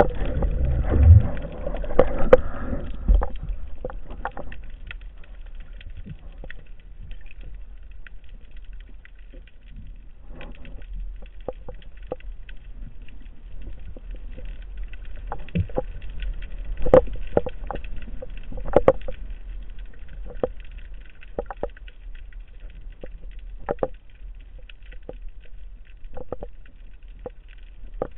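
Water sounds heard through a spearfisher's camera housing: a steady low rumble with many scattered clicks and knocks. The sound is louder and busier for the first few seconds.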